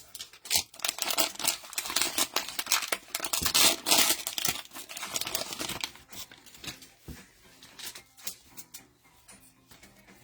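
Cellophane wrapper of a football-card fat-pack being torn open and crumpled: a dense crinkling, loudest about four seconds in, that thins out after about six seconds into scattered small ticks and rustles.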